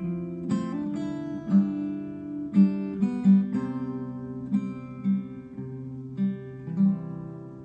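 Background music: an acoustic guitar plays a picked melody, note after note over lower held notes.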